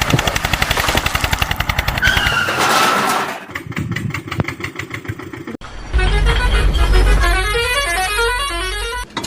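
Dubbed vehicle sound effects: a rapidly pulsing engine with horn toots over the first few seconds, then a short stepped tune over a deep bass in the last three seconds.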